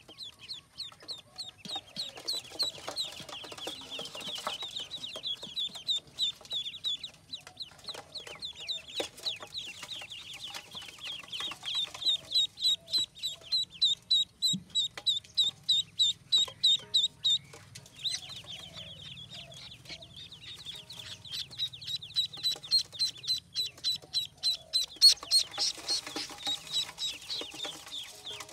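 A brood of ducklings peeping: many short, high calls overlapping several times a second, louder in stretches near the middle and toward the end.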